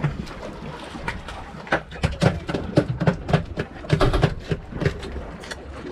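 Irregular knocks and taps on a fibreglass boat deck, over a low, steady rumble of wind and water.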